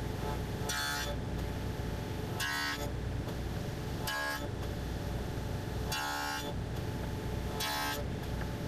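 Table saw with a dado blade running steadily, cutting box-joint fingers in a wooden side board. Five short cuts come about every two seconds, each a brief higher whine over the saw's hum.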